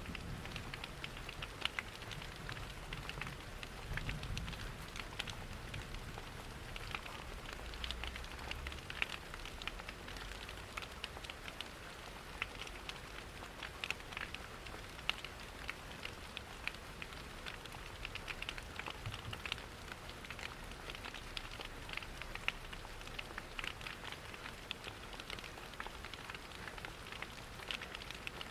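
Steady rain with frequent small, sharp crackles of a wood fire mixed in, over a soft low rumble.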